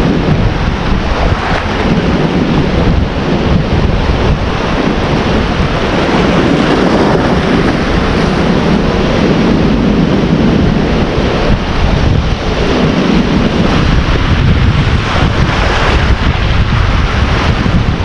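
Strong wind gusting against the microphone, a loud steady rumble over the rush of ocean surf.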